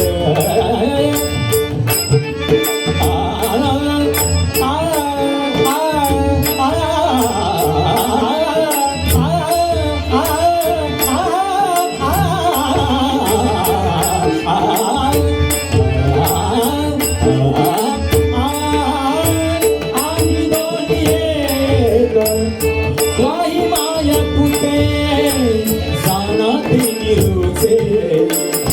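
Marathi devotional abhang performed live: a male voice sings long, ornamented melodic lines over a steady drone tone and regular hand-drum strokes.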